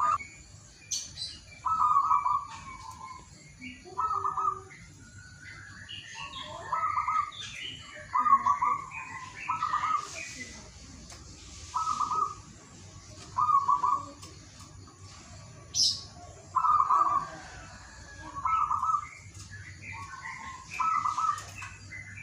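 Zebra dove (perkutut) cooing: short, bubbling phrases repeated about every one to two seconds, with other small birds chirping faintly among them.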